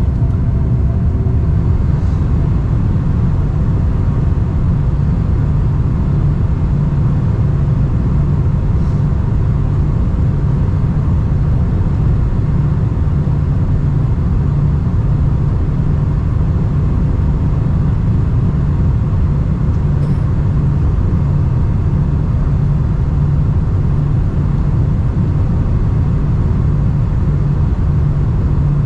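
Steady, loud cabin rumble inside a Boeing 747-400 airliner: engine and airflow noise heard from a window seat, with a few faint steady tones above the low rumble.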